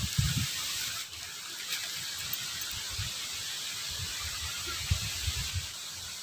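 Steady hiss of water running in a shallow ditch, with a few short low thumps on the microphone.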